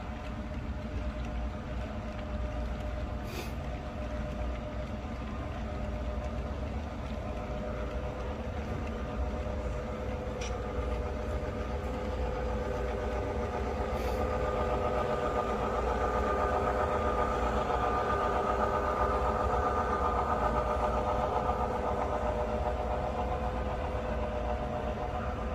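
Model freight train running past on layout track: a steady rolling hum and rumble from the cars and locomotive, with an engine-like drone that swells louder in the second half, and a few faint ticks.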